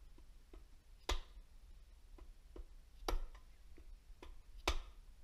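Three hammer blows on a soft-wood punch, about two seconds apart, with fainter knocks between them. The blows drive an aluminium piston of a D24 six-cylinder diesel down out of its cylinder bore.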